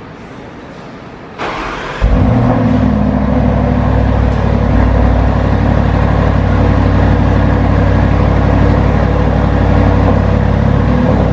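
Audi SQ7 TFSI's twin-turbo 4.0-litre V8 starting through its stock exhaust: a brief crank about a second and a half in, the engine fires half a second later and settles into a loud, steady idle.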